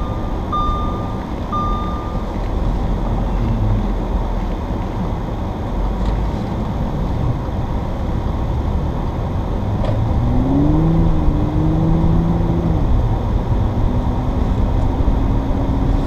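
Inside the cabin of a supercharged Audi S4 driving on a snow-covered road: steady road and tyre noise over the engine's hum. A couple of short electronic beeps about a second apart come near the start. From about ten seconds in, the engine note rises as the car accelerates, holds, then drops, and near the end it climbs slowly again.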